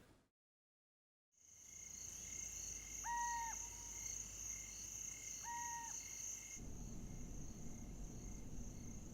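After about a second of dead silence, a faint outdoor ambience of insects chirring steadily in a high, even pulse. Two short, clear, even-pitched bird calls sound about two and a half seconds apart.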